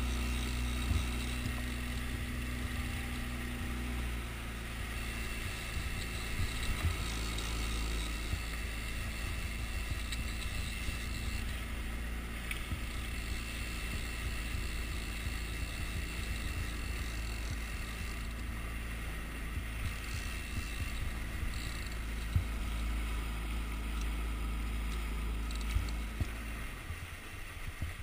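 Small Yamaha outboard motor running steadily, with the boat's wake rushing past the hull. The engine note changes about four seconds in, and the engine sound falls away shortly before the end.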